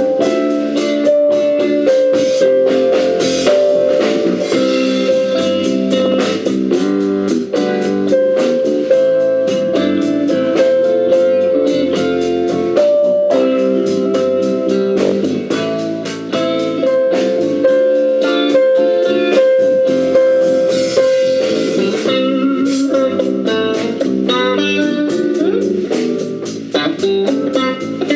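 Live band playing blues-style music, an electric guitar to the fore over electric bass and keyboard, with a steady beat.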